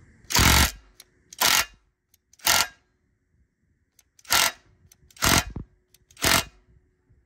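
Hyper Tough 12V cordless 3/8 in impact wrench running in reverse in six short trigger bursts about a second apart, hammering on a bolt torqued to 250 ft-lb to break it loose. It is powered by a partly drained older battery.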